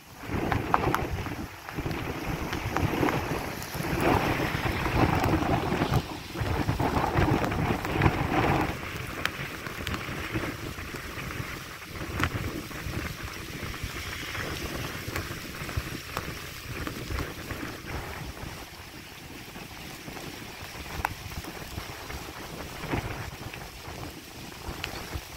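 Strong, gusty thunderstorm wind buffeting the microphone in loud gusts for the first several seconds, then easing to a steadier, quieter rush.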